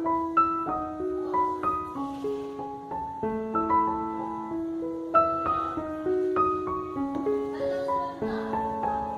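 Background piano music: a slow melody of single notes over held lower notes.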